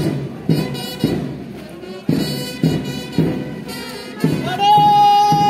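March music on brass instruments over a steady bass drum beat, about two beats a second, with a long held high brass note starting near the end.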